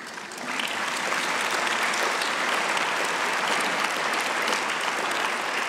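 A large audience of delegates applauding: many hands clapping, building up in the first half second and then holding steady.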